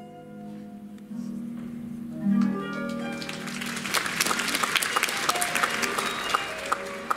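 Ballet music with plucked harp-like notes, and audience applause breaking in about two seconds in and clapping on over the music until near the end.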